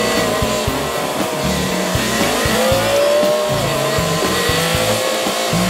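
Diesel engine of a semi truck heard from inside the cab as the truck moves off, the engine note rising and falling as it pulls.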